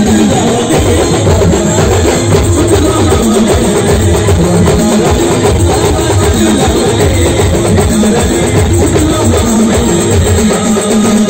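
A live village band playing loud, heavily amplified music, with pounding drums keeping a steady beat under a plucked-string melody.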